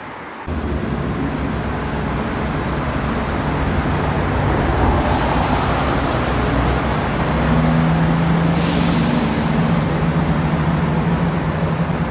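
Road traffic passing on a wet road, tyres hissing as vehicles go by about five seconds in and again near nine seconds. Under it runs a steady low diesel engine drone that grows louder partway through, from a diesel multiple-unit train pulling out along the line beside the road.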